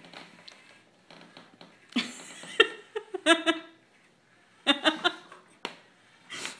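A person laughing in short bursts, about two seconds in and again near five seconds, with a few sharp clicks in between.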